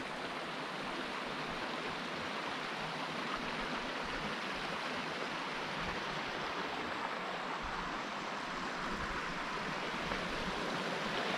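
Shallow creek water running over rocks: a steady rushing hiss.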